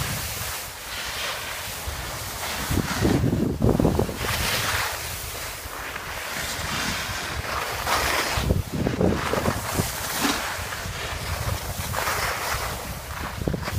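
Skis hissing and scraping over packed snow, swelling and fading every second or two, mixed with wind buffeting the microphone as the skier moves downhill.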